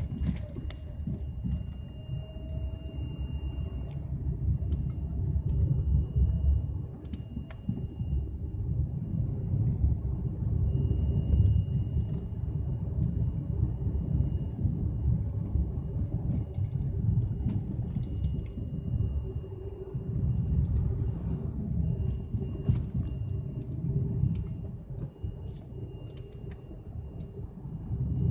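High whistle from a Lada Vesta CNG's gas pressure reducer: a thin steady tone that fades in and out again and again over the low rumble of the running car.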